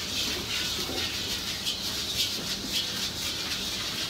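Steady sizzling hiss of food cooking in a pan over a gas flame.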